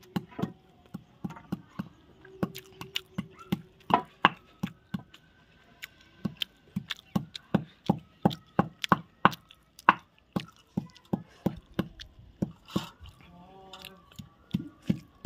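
Stone muller knocking and scraping on a flat stone grinding slab (shil-nora) as paste is ground by hand. It makes a run of sharp knocks, about three a second, and eases off for a couple of seconds near the end.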